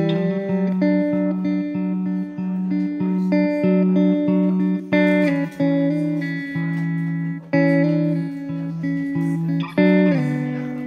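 Background music: a guitar picks a melody of short single notes over a repeated low note, then plays a chord near the end that rings out and fades.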